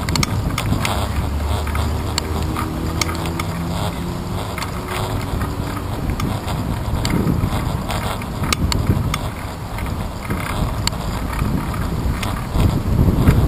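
Bicycle riding over a rough path, heard through a handlebar-mounted camera: a steady rumble of tyres and wind on the microphone, with frequent clicks and rattles as the bike jolts over bumps.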